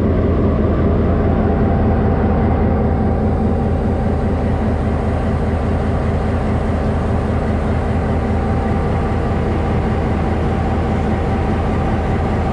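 Henschel-built Class M6 diesel locomotive's engine running steadily close by, a loud, even drone with a strong low hum.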